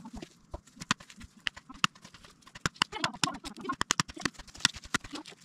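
Dry sticks and twigs knocking together and snapping as firewood is handled, a quick irregular run of sharp cracks and clicks.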